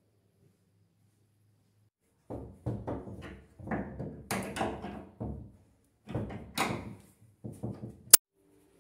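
A wrench and hands working an adjustable plastic leg on the underside of a shower tray, levelling it: a run of irregular knocks and scrapes starting about two seconds in, ending with one sharp knock.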